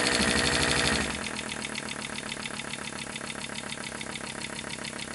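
Five-cylinder Rudy Kouhoupt Radial 5 model engine running on compressed air, a rapid, even chatter of exhaust puffs. About a second in the air is turned down and it runs on more quietly, on very little air pressure.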